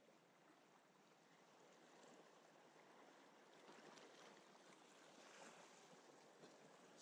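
Faint sea water washing and lapping against shoreline rocks, swelling slightly midway.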